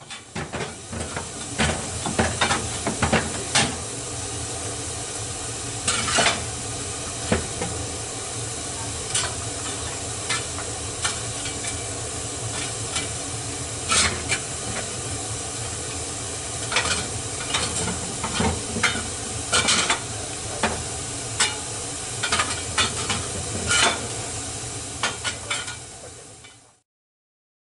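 Steam hissing steadily from the 2 ft gauge Bagnall tank locomotive Sea Lion as it stands in steam, with irregular sharp crackles and pops through the hiss.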